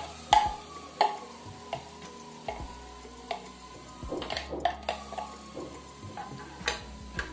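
Wooden spoon repeatedly knocking and scraping chopped onion out of a plastic chopper bowl into a pressure cooker pot, irregular sharp taps on the plastic and on the pot rim. Near the end the spoon stirs the onion in the pot while it sizzles faintly in hot oil.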